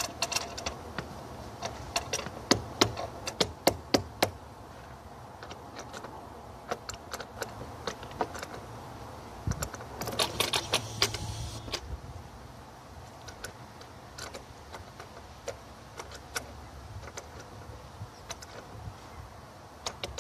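Irregular metallic clicks and clinks of a small hand tool working a battery terminal clamp as a battery cable is fastened, with a denser run of rapid clicks and scraping about ten seconds in.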